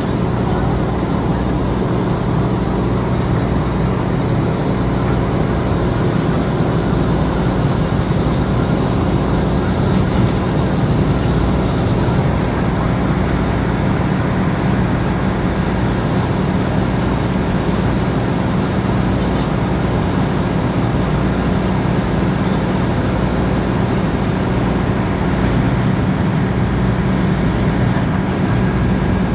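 Steady drone of a running engine holding an even pitch, with no change in level.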